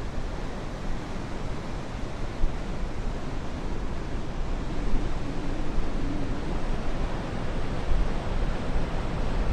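Ocean surf breaking on the beach, a steady rushing noise, with a low wind rumble on the microphone.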